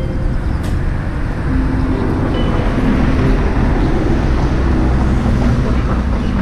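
Steady road and wind rumble from riding a motorcycle in traffic, getting a little louder about two seconds in, with background music notes over it.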